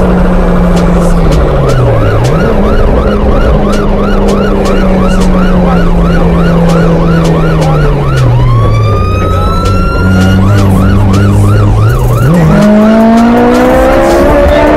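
Police siren on rapid yelp, about three cycles a second, switching a little past the middle to one long rising wail and then back to the yelp, over the car's own engine heard from inside the cabin. The engine note sags and drops, then climbs hard near the end as the car accelerates.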